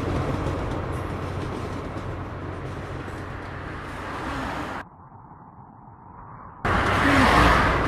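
Steady outdoor roadside rumble and hiss, with a car driving past. About five seconds in it cuts abruptly to a muffled hush, and near the end a loud rush of noise starts suddenly.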